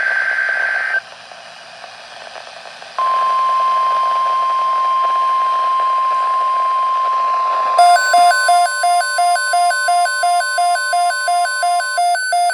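NOAA Weather Radio alert sequence: a brief warbling data burst ends about a second in, and after a short hiss the steady 1050 Hz weather-radio warning tone sounds from about three seconds in. About eight seconds in, a two-pitch electronic alarm beep starts pulsing a little over twice a second over the tone, which stops near the end while the beeping goes on.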